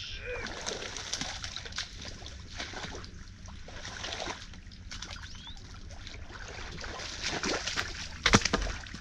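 Creek water sloshing and splashing in irregular bursts as a beaver dam is pulled apart by hand, with one loud splash about eight seconds in.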